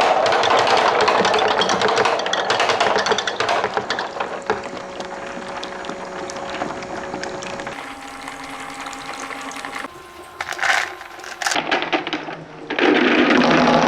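Many small plastic balls clattering and rolling down a plastic somen slider with water running, a dense rattle that thins to a quieter trickle, then swells back to a loud rattle near the end. The sound changes abruptly a couple of times in the middle.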